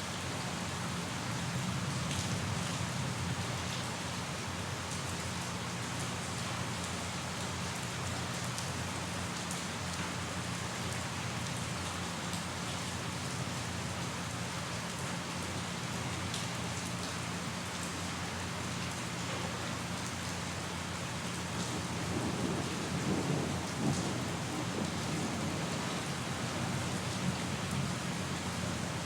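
Steady heavy rain falling. About three-quarters of the way in comes a brief low rumble of thunder.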